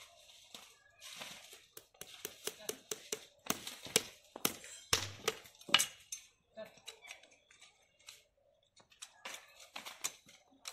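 Irregular sharp metallic taps and clicks of a hammer and pincers working a metal shoe onto a buffalo's hoof, densest in the middle of the stretch.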